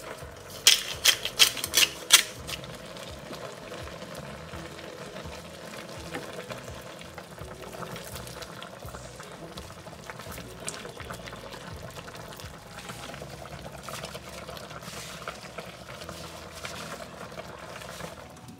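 Taro stalks cooking in a wok, a steady sizzle and simmer with small crackles, broken about a second in by a quick run of about six sharp taps.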